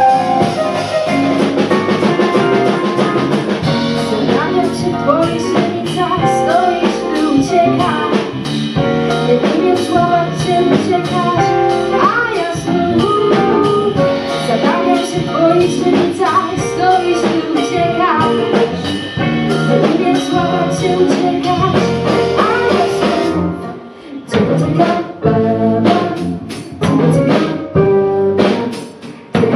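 A live band playing: a woman singing into a microphone over electric guitar, bass guitar, keyboard and drums. About two-thirds of the way through, the band drops to sparse, stop-start accents with gaps between them.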